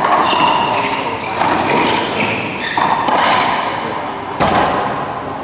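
Racquetball rally: the ball is struck by racquets and hits the court walls, with sharp echoing cracks about four times, roughly a second and a half apart.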